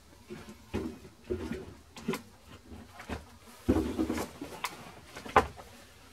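Scattered handling knocks and clicks as a workshop stool is set down and sat on, heaviest about four seconds in, then a sharp click a little past five seconds in as hands go to the reel.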